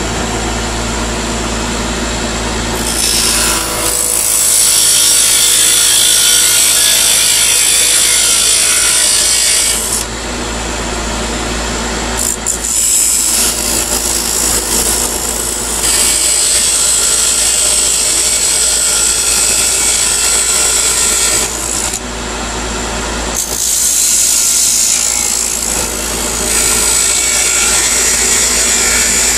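Wood lathe running steadily while a thin parting tool cuts into the spinning wooden chess piece, a hissing scrape of the cut that comes and goes in three long spells. This is a parting cut, the piece being cut nearly through to separate it from the stock.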